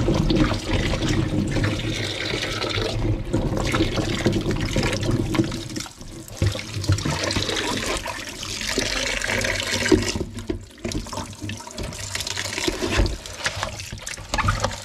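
Tap water running into a bowl of potatoes while hands rub and scrub them, the water splashing and sloshing around the potatoes.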